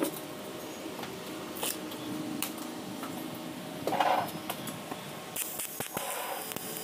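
Light clicks and metal knocks as the TIG torch and filler rod are set on a stainless steel tube frame, with a louder knock about four seconds in; near the end a steady high hiss starts as the TIG arc is struck and welds the stainless steel.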